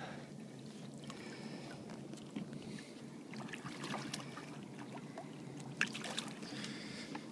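Faint water sloshing and small splashes from a hooked redfish thrashing at the surface, with a few light clicks.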